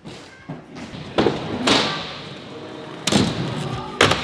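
Aggressive inline skates rolling on skatepark ramps and obstacles, with several hard thumps and slams of skates landing or striking the obstacles about a second apart.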